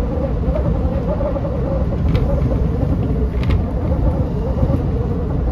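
JR West 227 series electric train running along the track, heard inside the driver's cab: a steady low rumble with a wavering mid-pitched tone over it, and two short clicks about two and three and a half seconds in.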